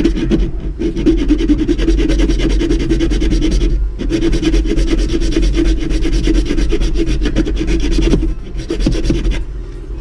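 Hand file rasping back and forth on the yellow plastic frame of a Bruder toy skid steer, in quick continuous strokes, filing down a rib that the loader's servo arm rubs on. The filing pauses briefly about half a second in and again about four seconds in, and grows lighter and patchier near the end.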